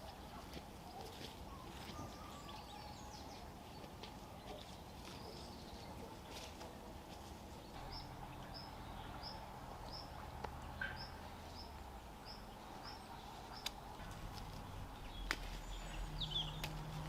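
Faint rural outdoor ambience: a small bird gives a run of about ten short, high chirps about half a second apart in the middle, over a faint low hum and a few sharp clicks.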